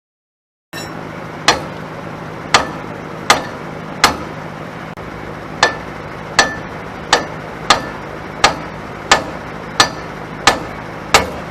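Hammer blows on steel, about thirteen sharp ringing strikes at a steady working pace, over a steady low hum.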